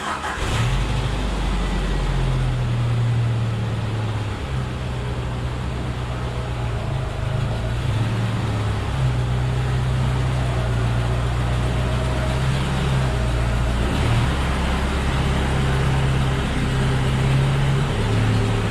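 A car driving, with steady engine and road noise and a low engine drone that rises and falls every few seconds.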